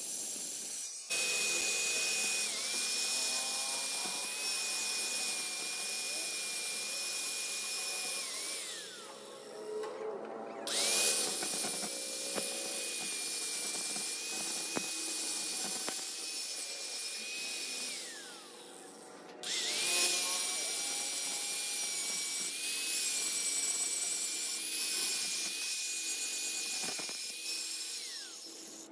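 Angle grinder grinding the steel teeth of a differential pinion gear: it is switched on three times, each run a steady high whine over a hard grinding hiss that dips briefly as the disc bites, and each time it winds down with a falling whine when switched off.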